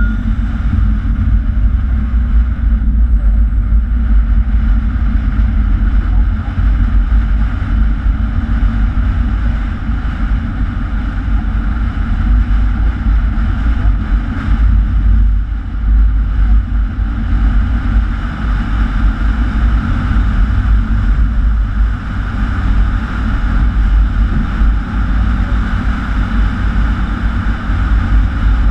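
Steady wind buffeting the microphone of a camera mounted on a moving car, over a deep rumble of the car running along a gravel track.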